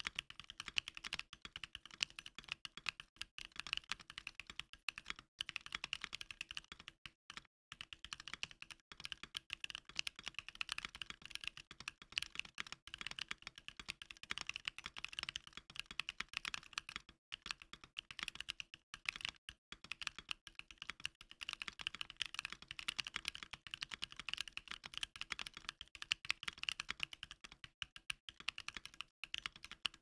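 Rapid, continuous typing on a stock Bakeneko60 aluminium-case keyboard with ePBT keycaps and Chosfox Hanami Dango green tactile switches (JWK-made, nylon housings, 67 g springs), with all sound dampening removed. Dense keystroke clicks with a few brief pauses.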